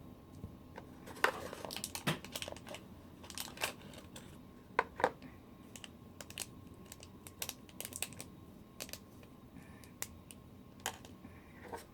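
Small toy pieces and their packaging being rummaged through and handled: scattered light clicks, taps and crinkles.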